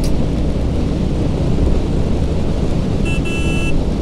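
Steady wind buffeting the microphone over the running motorcycle at road speed, with a vehicle horn sounding once for about half a second, about three seconds in.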